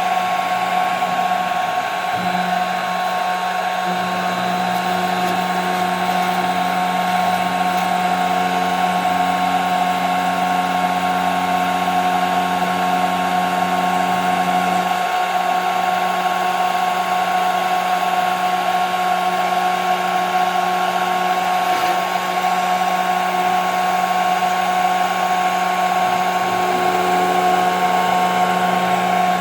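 CNC router spindle running with a steady high whine while machining 5 mm plexiglass, over an even rushing noise; a lower hum shifts pitch a few times as the machine moves.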